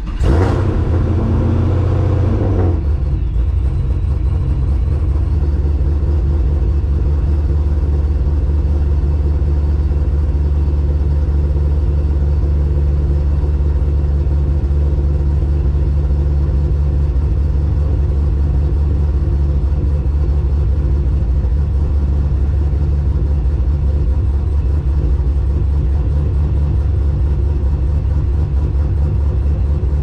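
Pontiac GTO's LS V8 just after a cold start, heard from the driver's seat. It flares higher for the first two seconds or so, then settles into a steady fast idle of about 1,100 rpm as it warms up.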